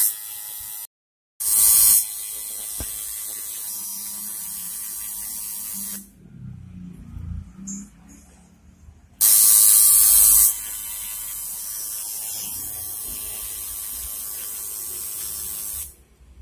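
Electric tattoo machine buzzing steadily as it runs over the skin. It stops for about three seconds midway, starts again loud for a moment, then runs on steadily until it cuts off near the end.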